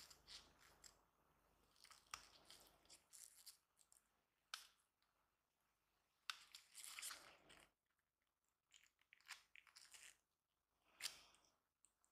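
Faint handling noises: gloves rustling and small irregular clicks and scrapes as a SIM ejector pin is pushed into a smartphone's side and the metal SIM tray is drawn out.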